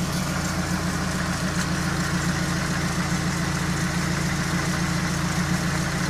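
Freshly repaired ZMZ-405 inline-four petrol engine of a GAZelle idling steadily and evenly, a smooth hum with no knocking.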